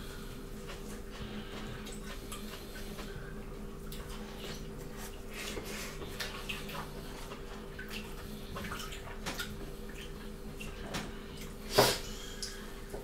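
Mukbang eating sounds: wet chewing, lip smacking and the squish of fingers working rice, meat and lettuce, made up of many small soft clicks over a faint steady hum. A sharper knock comes about a second before the end.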